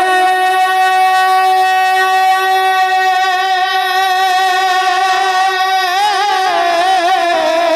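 A man singing a naat, holding one long, high, steady note for about six seconds, then breaking into a wavering run of ornaments near the end.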